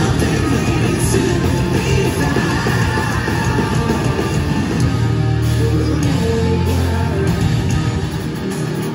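Pop-punk band playing live through a concert PA: distorted electric guitars, bass and drums with a singer's voice. A strong low note is held for a couple of seconds about midway.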